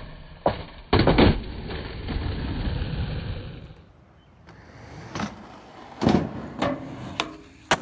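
Skateboard doing a firecracker down a concrete stair set. There is a knock about half a second in, then a quick rattle of clacks as the board's tail bangs down the steps, then the wheels roll on concrete. Later there are a few separate sharp skateboard clacks and knocks.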